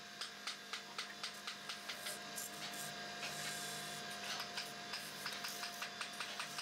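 Wood lathe running with a steady motor hum and a regular ticking about four times a second. Around the middle a steel turning chisel hisses as it cuts into the spinning wooden table leg.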